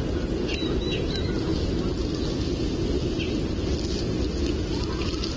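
Steady low wind rumble on an outdoor nest-cam microphone in a snow storm, with a few faint, high, short bird chirps about a second in.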